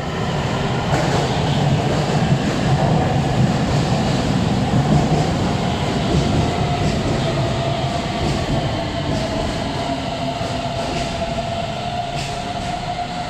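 BDK03 metro train with its IGBT VVVF traction inverter, pulling in and braking: a heavy rumble of wheels on rail under a thin electric whine that slowly sinks in pitch, then steps higher near the end as the train nears a stop.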